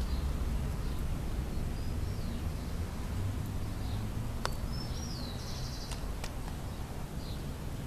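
Outdoor garden ambience: a steady low rumble with faint bird calls, short chirps and one buzzy trill about five seconds in, and a few sharp clicks from the camera being handled.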